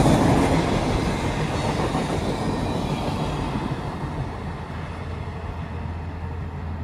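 Passenger train rolling past, its wheel and rail noise fading steadily as it moves away.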